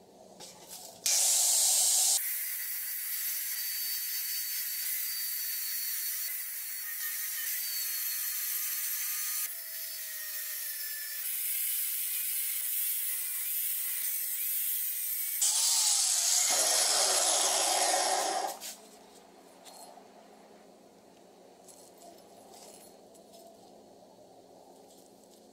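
Angle grinder cutting a zigzag crown pattern into a metal tube clamped in a vise: a loud, high-pitched grinding hiss that stops about 18 seconds in. Faint handling ticks follow.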